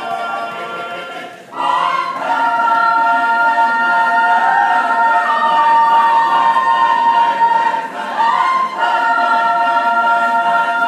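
Mixed choir singing a cappella in held chords. The sound drops away briefly about a second and a half in before a new chord enters, with another short break just after eight seconds.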